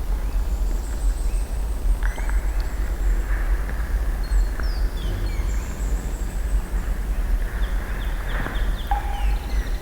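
Outdoor ambience: a steady low rumble under faint, scattered high bird chirps and short whistled calls.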